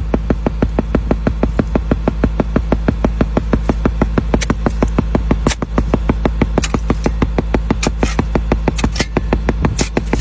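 Cable excavator's engine running with a fast, even knock over a steady low hum, with a few sharper metallic clanks.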